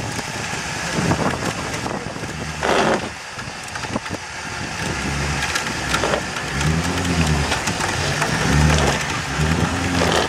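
Suzuki Vitara's engine running under strain while stuck in a muddy ditch, revving up and down in several swells in the second half.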